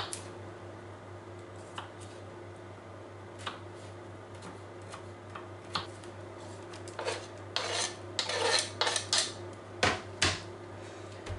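Kitchen knife ticking a few times on a plastic cutting board, then scraping chopped garlic off the tilted board in a run of short scrapes. Near the end come two sharp knocks as the board is set back down on the counter.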